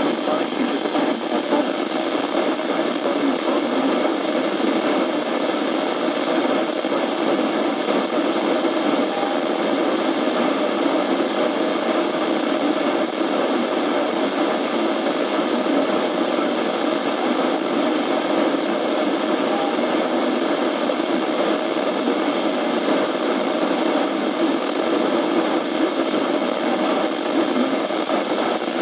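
Steady radio static from a broadcast receiver: an even, unbroken hiss with no clear words.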